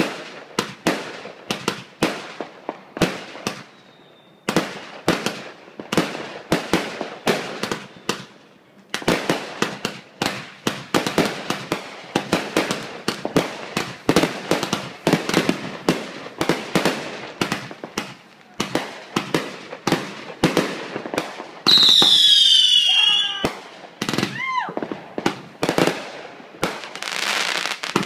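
Fireworks going off in rapid succession during a finale, sharp bangs several times a second with brief lulls. About two-thirds of the way through, a loud whistle from a whistling firework sounds for about a second and a half over the bangs, followed by a shorter whistle.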